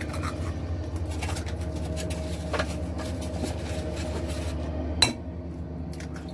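Eggs being cracked and handled at a bowl: light clinks and taps of shell and dishware, with one sharp knock about five seconds in. A steady low hum runs underneath.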